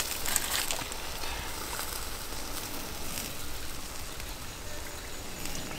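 Pork ribs sizzling on a wire grill over charcoal embers: a steady hiss with a few faint pops in the first second.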